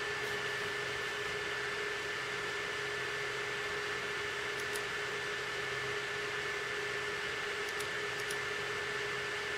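Steady background hiss with a low hum and a faint, steady high whine, broken by a few faint clicks about halfway through and near the end.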